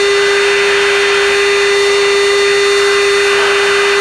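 Steady in-flight cockpit noise of a military jet, taken through the aircraft's intercom: an even rushing with a constant hum running under it.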